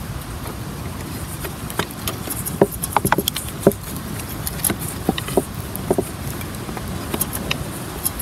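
Clear plastic being crinkled and pressed by hand, a string of short, uneven crackles and clicks, over a steady low background rumble.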